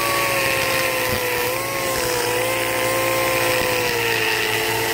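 Air die grinder running steadily with a coarse cutting bit in the intake bowl of a cast iron small-block Chevy cylinder head, grinding away metal. Its steady whine drifts slightly lower in pitch.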